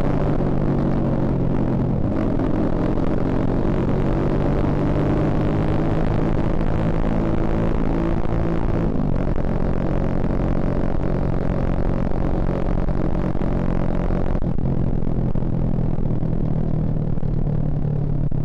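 Suzuki Shogun Axelo R motorcycle's single-cylinder four-stroke engine running while riding, at a steady loudness. Its note shifts in pitch about two seconds and about nine seconds in. About fourteen seconds in, the hissier upper part of the sound falls away.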